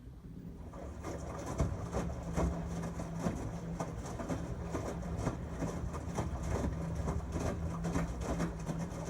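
A 13-year-old LG Tromm WD-CR101C front-loading drum washing machine running a wash cycle. A steady motor hum starts and builds over the first second, with irregular clicks and knocks as the drum turns.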